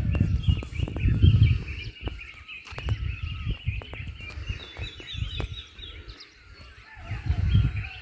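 A chorus of small birds chirping and calling continuously, many short, quick notes overlapping. Under it a low rumble on the microphone comes and goes, loudest at the start and again near the end.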